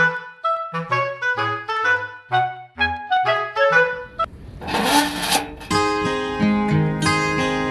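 Background music: a melody of short, separate notes, a brief swish about five seconds in, then sustained chords.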